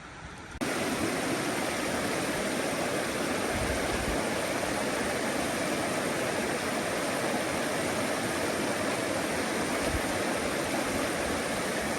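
Rushing water of a flooded river: a steady, even noise of flowing water that comes in abruptly about half a second in.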